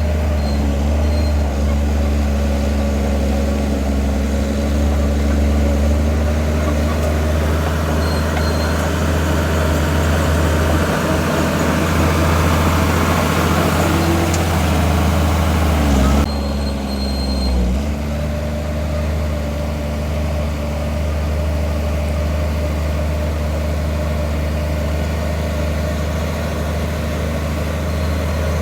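Heavy diesel engine of earthmoving machinery running steadily. A rushing noise builds over the middle and stops abruptly about sixteen seconds in, after which the engine runs on a little more quietly.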